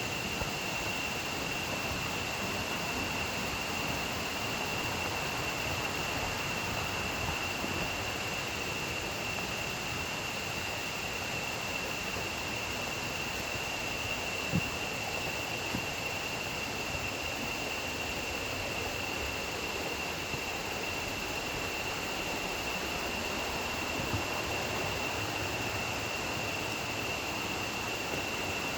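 Steady rush of a small river's flowing water, with a constant high, thin tone above it and a couple of faint clicks.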